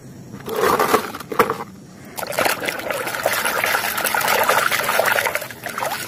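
Muddy water sloshing and swishing in a basin as plastic toys are scrubbed with a sponge, with a few sharp knocks in the first two seconds.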